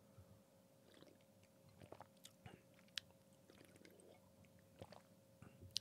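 Faint mouth sounds of drinking from a can: small sips, swallows and a few soft clicks.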